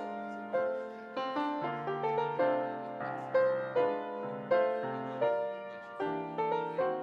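Piano playing a slow melody over sustained chords, each note struck and then fading.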